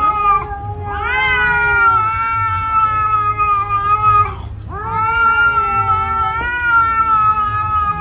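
A cat yowling at another cat in a face-off: a short call, then two long, drawn-out yowls of about three to four seconds each.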